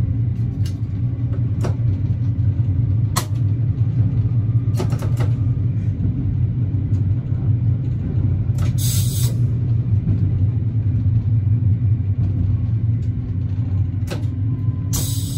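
Running noise inside an AKN VTA diesel railcar: a steady low rumble of engine and wheels on the track, with a few sharp clicks in the first five seconds. Two short hissing bursts come about nine seconds in and near the end.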